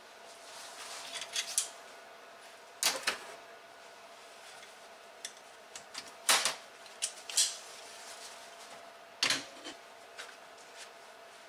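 Scattered sharp metallic clicks and clacks as steel pedal parts and locking pliers are handled and the pliers are snapped open, the loudest about six seconds in, over a faint steady hum.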